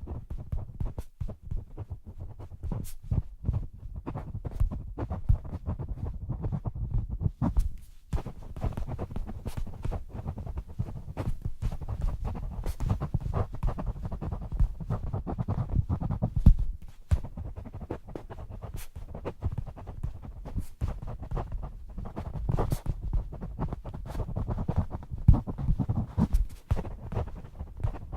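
Pen writing on paper, a continuous scratching and rubbing with scattered sharp ticks.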